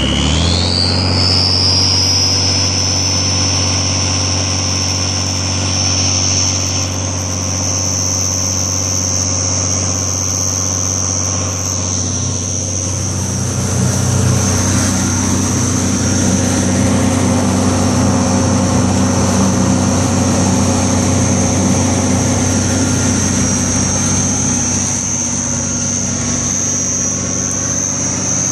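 Volvo turbocharged straight-six marine diesel engine speeding up in the first second and then running steadily under way, with a high turbo whistle that climbs in pitch as it spools up and then holds steady.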